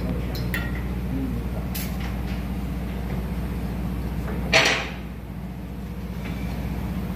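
Ship's engine-room diesel machinery running with a steady low hum. About four and a half seconds in comes a brief loud noisy burst, with a few light clicks earlier.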